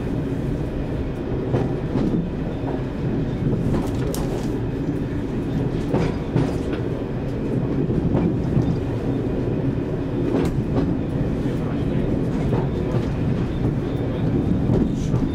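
Class 101 diesel multiple unit on the move, heard from the driving cab: a steady drone of its underfloor diesel engines and running gear, with the wheels clacking over rail joints every couple of seconds.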